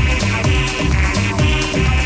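House music from a DJ mix: a steady four-on-the-floor kick drum at about two beats a second, with hi-hats ticking between the kicks.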